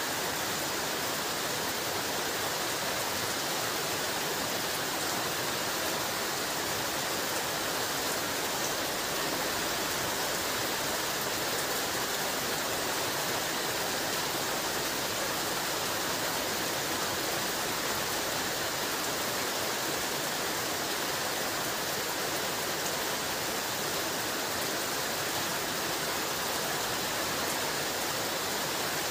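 Heavy rain falling steadily: a dense, even hiss of countless drops with no break or change.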